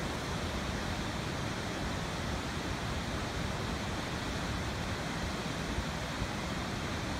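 Large waterfall, a heavy torrent of water pouring down in a steady, even rush.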